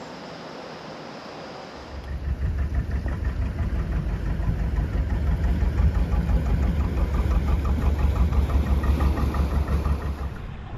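Engine of a passing canal boat running with a fast, even chug, starting about two seconds in, growing louder, then dropping away just before the end.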